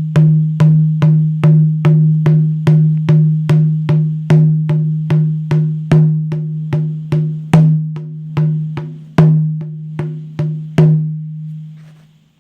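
Native American hand drum beaten in a steady rhythm of about two and a half strokes a second, each stroke ringing with a low tone, some struck harder than the rest. The beating stops about eleven seconds in and the ring fades out.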